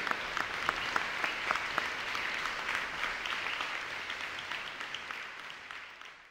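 Concert audience applauding, the clapping falling into a steady rhythm of about three to four claps a second, then fading out near the end.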